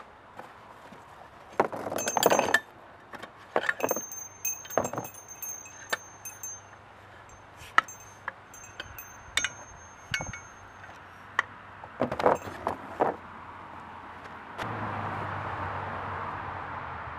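Steel parts of a SportRack 2EZ hitch bike rack clinking and knocking together as they are handled in a cardboard box. Some knocks leave a thin metallic ring. A steady hiss sets in near the end.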